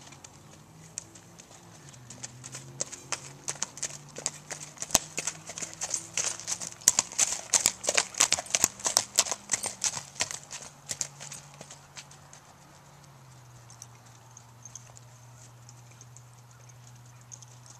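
Hoofbeats of a ridden gaited horse on packed dirt: a rapid run of clip-clops, loudest in the middle as the horse passes close and fading after about ten seconds. A low steady hum runs underneath.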